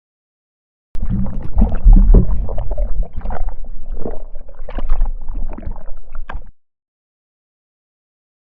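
Water gurgling and sloshing in irregular, deep bubbling surges. It starts suddenly about a second in and cuts off abruptly after about five and a half seconds.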